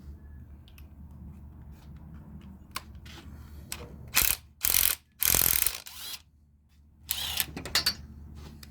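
Hand work on a brass valve: a few single clicks, then several short bursts of rapid mechanical clicking, the loudest a little past the middle and more near the end, over a low steady hum.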